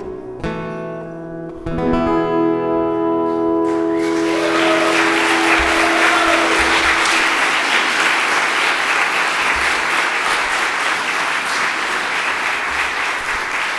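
The song's closing chords on guitar and piano, struck twice about half a second and 1.7 s in and left ringing. About four seconds in, the audience breaks into applause that continues steadily.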